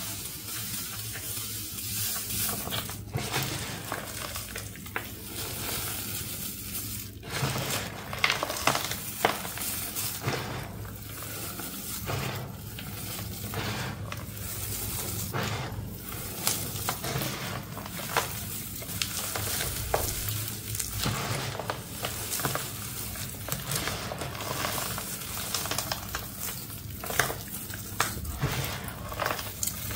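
Hands crushing and crumbling a powdery block mixed with foil confetti: a steady gritty crackle of powder grinding and sifting through the fingers, broken by many short sharp crunches.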